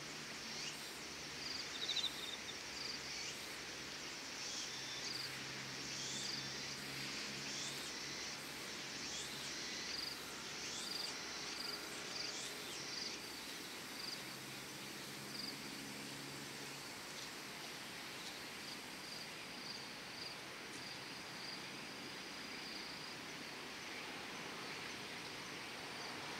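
Insects chirping outdoors on an early autumn evening: short, high-pitched chirps repeating about once a second over a steady hiss of outdoor ambience, with a faint low hum in the first half.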